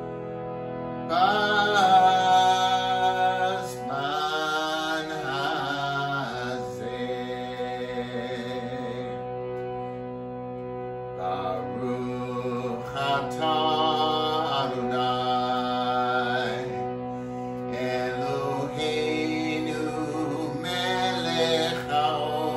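A man singing in long phrases over a Bina harmonium's steady held chords, the reed drone sounding on its own in a short pause midway.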